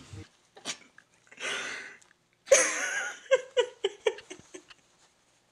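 A man's voice acting out pain: a heavy breath, then a loud strained groan about two and a half seconds in, followed by a quick run of short gasping breaths.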